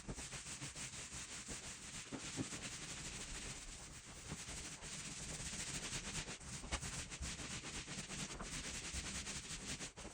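Soft, steady rubbing of a roller spreading polyurethane over a freshly stained hardwood floor.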